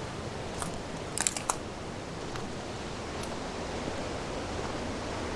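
Steady rush of river water, with a few light crunching footsteps on the bank in the first few seconds.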